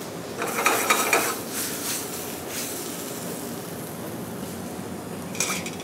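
Metal sauté pan of braising romaine and edamame scraped and lifted off a gas range's burner grate, a clatter of metal on metal from about half a second to a second and a half in, then steady kitchen background noise; a short metallic clink near the end.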